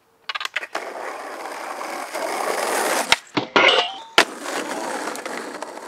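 Skateboard wheels rolling on asphalt, growing louder as the board approaches, then a quick run of sharp clacks and clattering from the board at about three seconds, with one more hard clack about a second later before the rolling carries on more quietly.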